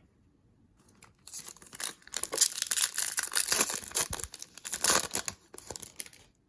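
Foil wrapper of a baseball card pack being torn open and crinkled, a dense crackling rustle that starts about a second in and dies away near the end.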